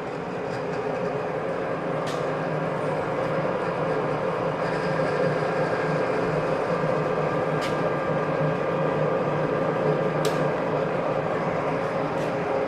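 Sharp horizontal/vertical milling machine running steadily: its 3 hp three-phase motor and gear head give an even hum with several steady tones. A few faint clicks come through it.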